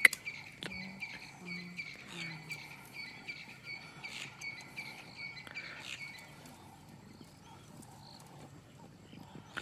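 A sharp click, then a run of short, high chirping calls from a small animal, about three a second, repeating at one pitch and fading out about six seconds in.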